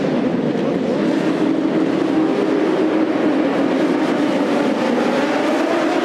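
A field of superbike racing motorcycles running together at high revs as the pack launches off the start grid, a dense overlapping blare of many engines. The pitch edges slightly upward near the end as the bikes accelerate.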